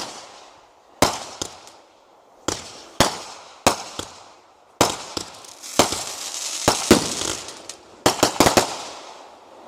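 Fireworks going off: a dozen or so sharp bangs at uneven intervals, each trailing off in an echo. There is a spell of dense crackling in the middle, and a quick cluster of four bangs near the end.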